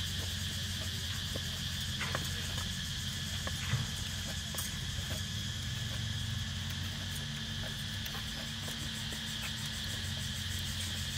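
Steady high-pitched insect chorus like crickets trilling, with a few soft taps of a kitchen knife cutting boiled pork on a wooden chopping board.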